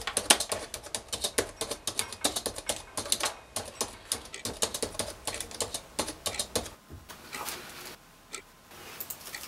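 Typing on a computer keyboard: fast, irregular key clicks for about seven seconds, then a few separate clicks near the end.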